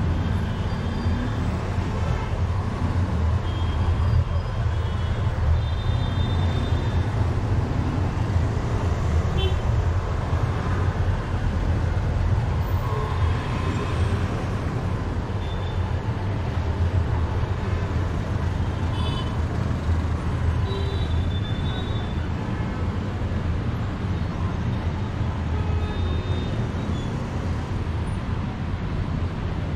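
Road and traffic noise from a moving car: a steady low rumble, with short high-pitched tones breaking in now and then.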